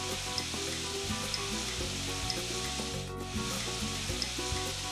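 Tamarind pulp poured into a hot kadhai of fried bitter gourd and spiced onions, sizzling steadily in the oil, with a short break about three seconds in.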